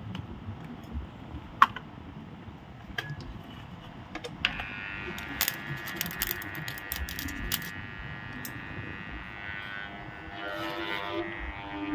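An armature growler buzzing with a steady electrical hum from about four and a half seconds in, as a freshly soldered motor armature sitting in its V-block is tested for shorted windings. Sharp clicks and rattles come from the armature being handled in the growler, with one loud click early on.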